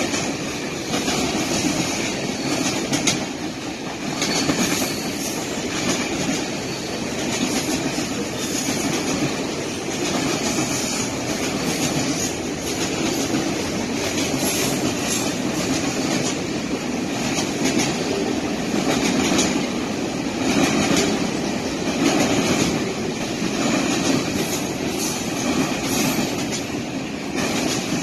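Freight train's cars rolling past on steel wheels close by: a steady rumble on the rails with irregular clacks as the wheels cross rail joints.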